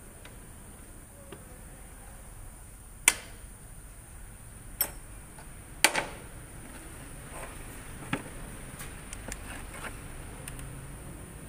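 Sharp metal clinks and knocks of hand tools and parts against a truck gearbox's bellhousing and shaft end, the loudest about three seconds in and around six seconds, with fainter ticks between. A steady high hiss runs underneath.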